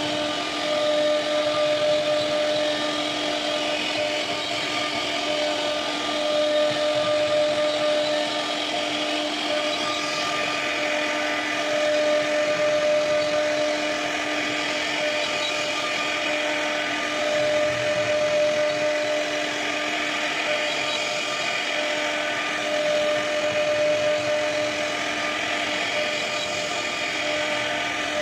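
CNC router spindle running with a steady whine while its bit carves a relief design into a wooden door panel, over a hiss of cutting. The sound grows louder every five or six seconds.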